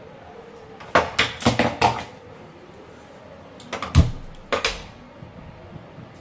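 Kitchen things being handled: a quick run of clinks and knocks about a second in, then a heavy thud about four seconds in and one more knock just after.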